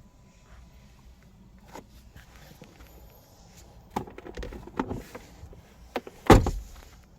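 Car door handling: several clicks and knocks, then one loud thump about six seconds in, typical of a car door being opened and shut.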